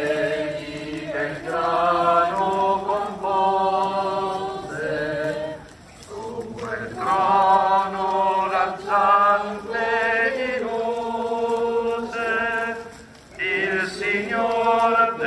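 A crowd of people singing a hymn together as they walk in procession, in long held phrases with short breaks about six and thirteen seconds in.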